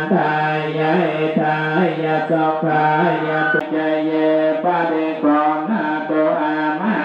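Voices chanting together over a held drone, the pitch bending and breaking syllable by syllable without stopping.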